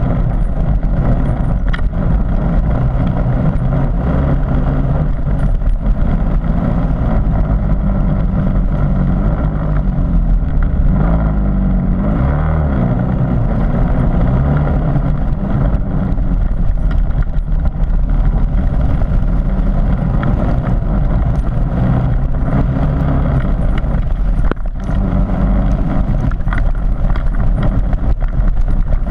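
Harley-Davidson MT350's single-cylinder four-stroke engine running steadily as the motorcycle is ridden, its pitch rising and falling around halfway through, with occasional short knocks.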